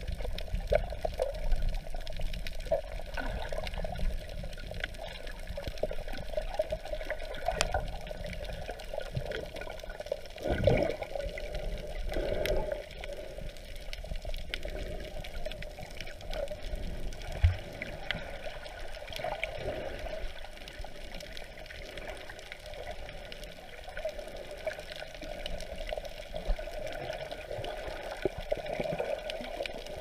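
Muffled water noise picked up underwater: a steady swishing hiss with scattered small clicks, and a couple of louder whooshes about ten to twelve seconds in.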